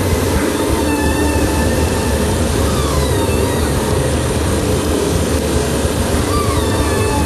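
Steady, loud rumbling noise, with faint whistle-like tones wavering and gliding above it.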